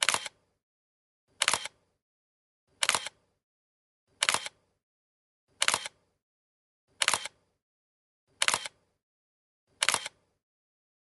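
Camera shutter sound effect: a short, sharp click-clack repeated evenly, eight times, about one and a half seconds apart.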